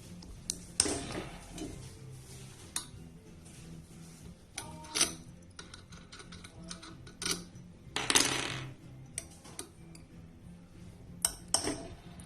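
Small hard objects handled on a work surface: scattered clicks, taps and light clatter, with a longer rustling scrape about a second in and another about eight seconds in.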